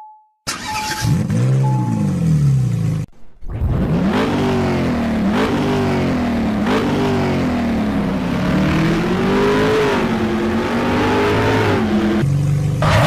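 Basuri musical vehicle horn playing a winding tune with pitch that slides up and down. A short phrase, a brief break about three seconds in, then a long phrase that ends on a steady held note.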